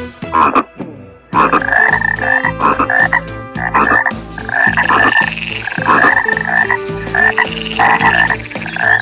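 An animal giving a run of repeated calls, one or two a second, starting about a second and a half in after a brief quiet gap.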